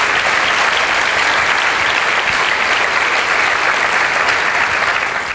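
Audience applauding, a steady round of clapping that cuts off abruptly at the end.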